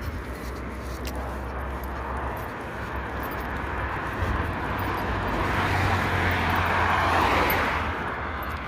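Wind buffeting the microphone with a steady low rumble. A broad whoosh swells and fades about six to eight seconds in.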